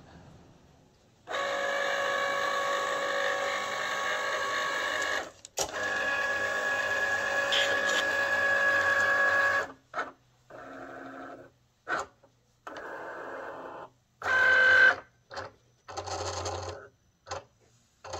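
Cricut Explore Air 2 cutting machine cutting copy paper on its mat: its motors whir steadily in two long runs of about four seconds each, then in a string of short stop-start bursts as the blade carriage and rollers move.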